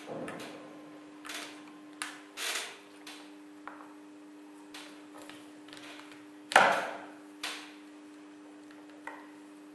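Suction cup being pulled at the corner of an iPhone 5 screen to prise it off: scattered sharp clicks and taps, the loudest about six and a half seconds in, over a steady low hum.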